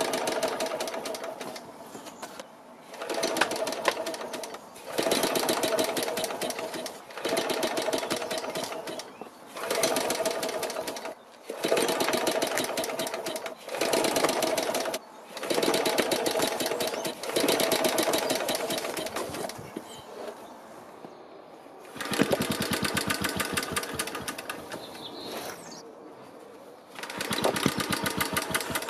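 Small single-cylinder four-stroke engine of a BSA 300-watt charging set being rope-pulled over and over: about ten pulls, each a second or two of fast cranking clatter, with a longer pause near the end. It fires on a few pulls with only a muted pop and does not run: a weak spark from a failing magneto coil, with timing the owner suspects is too retarded.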